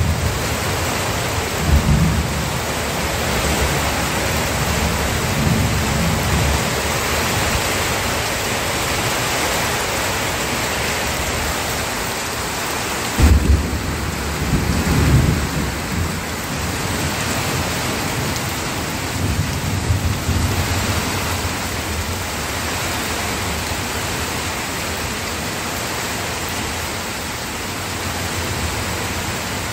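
Steady rain with low rumbles of thunder rolling in several times, one starting suddenly about thirteen seconds in.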